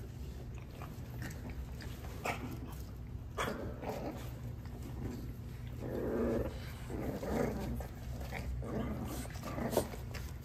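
French bulldog puppies play-fighting: small growls and grunts in short spells, starting about a third of the way in and loudest around the middle, with scuffling and light clicks of paws and bodies on the puppy pads.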